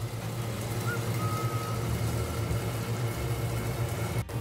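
Chilla frying in a lidded non-stick pan on a gas stove: a muffled sizzle over a steady low hum.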